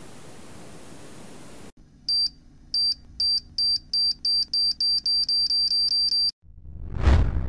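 Steady faint hiss of room tone, then an edited-in sound effect: a high electronic beep repeating faster and faster until it runs together, followed by a swelling whoosh that peaks in a loud, low boom near the end.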